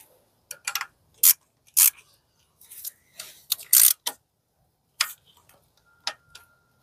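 Ratchet with a socket clicking in short, irregular runs while tightening an ignition coil bracket bolt, with scattered single clicks of metal on metal.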